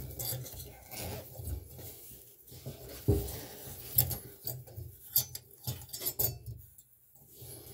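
New tub spout being turned by hand onto a Teflon-taped, pipe-doped threaded nipple: irregular rubbing and scraping with scattered sharp clicks, dropping off briefly near the end.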